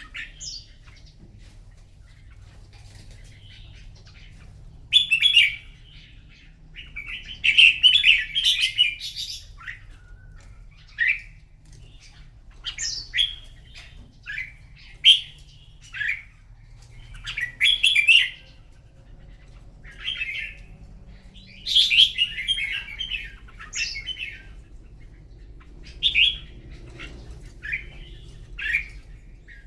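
Red-whiskered bulbul song in short, loud, warbling phrases every second or two: a bout of competitive song. A faint low hum runs underneath.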